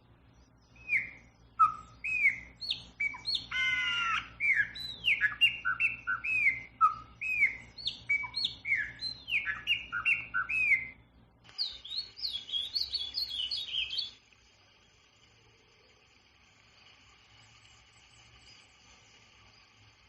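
A songbird singing a run of loud, clear whistled phrases made of slurred notes for about ten seconds. Then comes a different, faster song of high twittering notes that stops abruptly about fourteen seconds in, leaving only faint distant bird calls.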